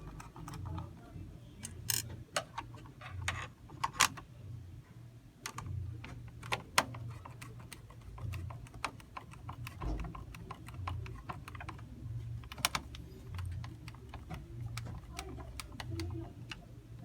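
Small irregular clicks and taps of screws and plastic casing parts being handled and fitted back together while the screwdriver's battery pack is reassembled, with a few sharper knocks.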